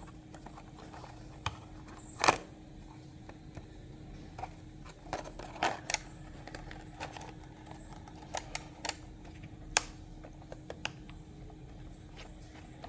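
A toy car's packaging being handled and opened by hand: scattered light clicks and rustles, with a sharper click about two seconds in, over a faint steady hum.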